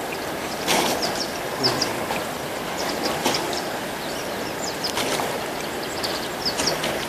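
Harbour ambience: water lapping around small moored boats, with a steady rushing noise, a few short knocks and scattered short high chirps.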